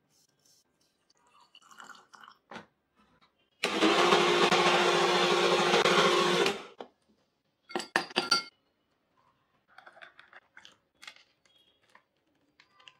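Prestige mixer grinder blending a milkshake in its jar for about three seconds, a steady motor whirr that stops abruptly. A few sharp clicks follow, then faint light taps.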